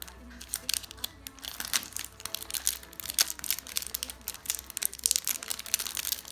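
Foil wrapper of a Pokémon booster pack crinkling and crackling as hands pull it open at the sealed top. The crackling starts about half a second in and goes on irregularly.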